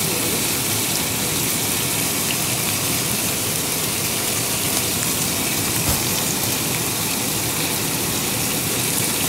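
Garlic cloves sizzling steadily in hot olive oil in a frying pan, with one light tap about six seconds in.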